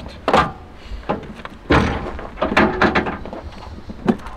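A few knocks and thumps from handling a crash-damaged car door while rummaging in its dented door pocket, the loudest about a third of a second and under two seconds in.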